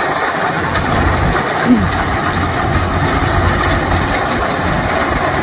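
Kubota DC105X rice combine harvester's diesel engine running steadily under load while it cuts and threshes rice, with a brief louder blip at about a second and a half in.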